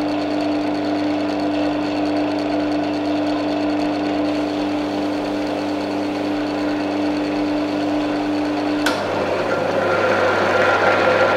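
Wood lathe running with a steady motor hum while a cloth rubs friction polish onto the spinning wooden bowl. About nine seconds in there is a click, the pitch of the hum changes, and the rubbing gets a little louder.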